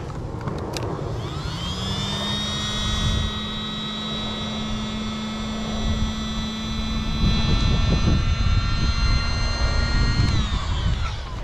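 Handheld electric air pump inflating a float tube's pontoon through its valve. The motor spins up about a second in, runs at a steady pitch with a whine, and winds down just before the end.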